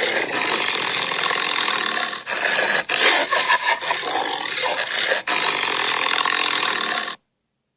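Monster roar sound effect for a made-up creature: a long, harsh, noisy roar with short breaks about two, three and five seconds in, cutting off abruptly into dead silence near the end.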